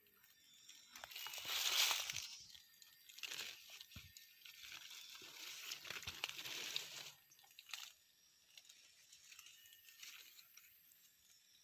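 Leaves rustling and crinkling in irregular bursts, loudest near the start, dying down to faint scattered rustles for the last few seconds.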